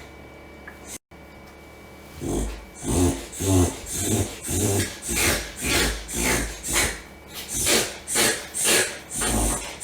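A dog reverse sneezing: a rapid series of harsh inhalations pulled through the nose, about two a second, starting about two seconds in.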